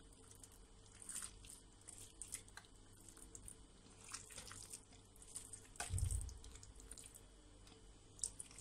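Faint, scattered soft wet plops and small clicks as thick clotted milk cream is added in lumps to a clear plastic food-processor bowl, with one low thump about six seconds in.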